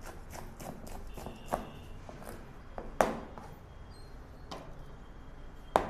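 Chef's knife chopping a vegetable on a plastic cutting board: quick short taps, about three to four a second, for the first two seconds, then a few separate louder knocks, the loudest about three seconds in and near the end.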